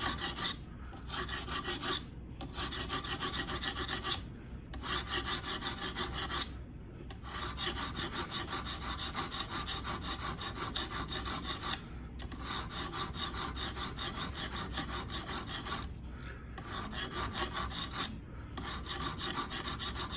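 Guided-system sharpening stone stroking back and forth along the steel blade of a Hinderer Spanto knife: a quick, even scraping at several strokes a second, in runs of a few seconds with short pauses between them.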